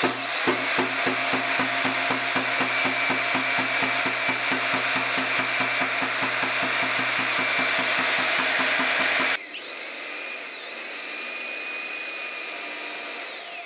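Hydraulic pump of a 30-ton shop press running under load as the ram pushes a rod out of a lathe tailstock, with a rapid even pulsing of about five beats a second and a high whine. About nine seconds in the pulsing stops abruptly and the pump runs on more quietly with its whine as the ram nears the end of its stroke.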